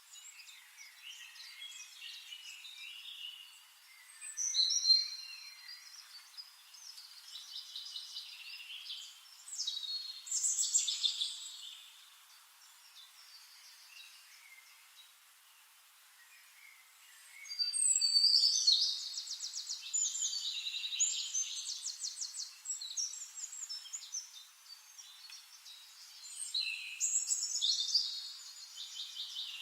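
Birds singing: high chirps and fast trills in several bursts with short lulls between.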